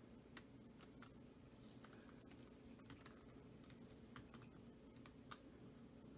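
Near silence with faint, irregular little ticks: drops of fluid acrylic pour paint dripping off the edge of a tilted canvas onto the covered table.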